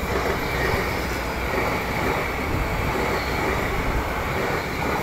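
TransPennine Express Class 802 train running past along the line next to the platform: a steady, loud rumble of the moving train.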